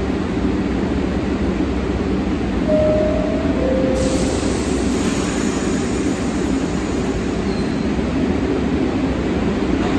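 New York City subway train idling at the platform with a steady rumble. About three seconds in, the two-note door chime sounds, the second note lower, signalling the doors are closing. At about four seconds, as the doors shut, a hiss of air starts and slowly fades.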